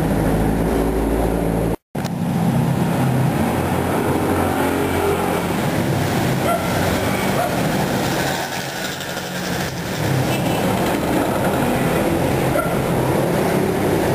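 Steady roadside traffic and engine noise, a continuous low din with a hum. It drops out for a moment about two seconds in.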